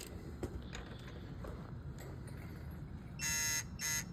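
Quiet for about three seconds, then rapid electronic beeping, about three short buzzy beeps a second: a digital torque wrench signalling that a cylinder-head stud is coming up to its set torque.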